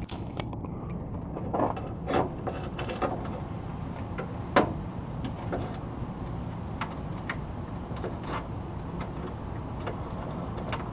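Scattered light clicks and knocks, about ten of them and the loudest about four and a half seconds in, from hand work on a car's hood latch, over a steady low background noise.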